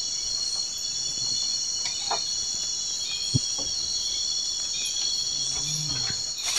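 A chorus of insects, such as crickets, chirring steadily in several high, unbroken tones. A single short knock comes about halfway through.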